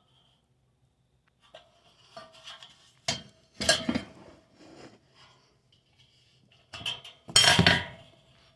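Scattered metallic clinks and knocks, as of metal objects being handled or bumped, with short ringing after each. The loudest cluster comes near the end.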